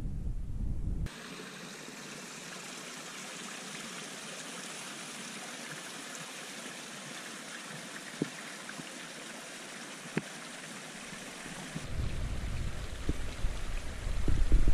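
A small mountain stream running and trickling steadily over rocks. It is bracketed by wind buffeting the microphone: briefly at the start, and again in louder gusts over the last few seconds.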